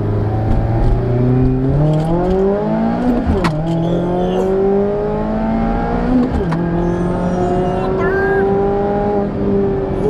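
Mazda Miata ND2's engine, heard from inside the cabin, accelerating hard in first gear with its pitch rising. The revs drop sharply at the upshift into second about three and a half seconds in, then climb again. They drop once more at a further upshift about six and a half seconds in, and the engine then pulls on steadily.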